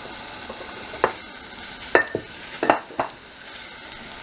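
Chicken wings in oil in a stainless steel pot, sizzling lightly while they are stirred. A utensil knocks sharply against the pot five times, about one to three seconds in.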